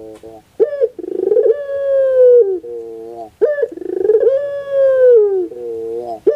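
Puter pelung (Barbary/ringneck dove) cooing. Twice there is a short rising note leading into a long, drawn-out coo that slowly falls in pitch, then a short, lower rolling phrase, and the next coo begins at the end.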